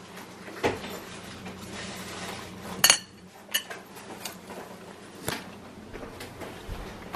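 Stainless steel fork clinking and scraping against a ceramic plate while cutting a pizza slice: several separate clinks, the loudest a ringing one about three seconds in, over a faint steady hum.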